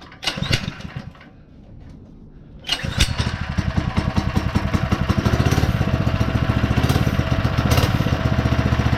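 Small single-cylinder engine of a mini bike, running low for the first few seconds, then revving up about three seconds in and running hard and steady with a fast, even firing beat.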